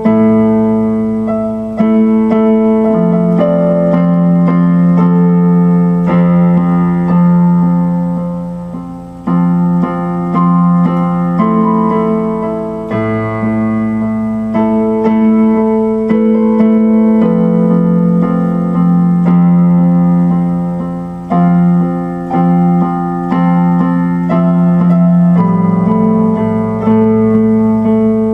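Instrumental background music led by electric piano or keyboard, with sustained chords that change every second or two.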